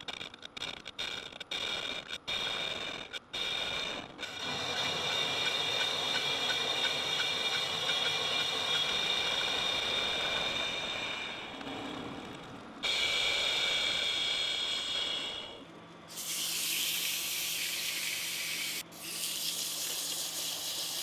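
Metal lathe taking a facing cut on a metal part, a steady cutting sound with a set of high, ringing tones, broken by several abrupt cuts. From about three-quarters of the way in, a loud steady hiss takes over.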